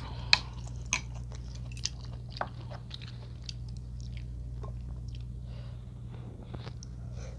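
Close-miked chewing of a mouthful of yukgaejang, beef and green-onion soup, with many small wet mouth clicks, a few sharper ones in the first second, over a steady low hum.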